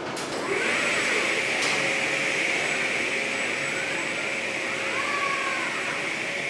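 Steady machine hiss with a faint steady hum from car-body assembly-line machinery, starting about half a second in.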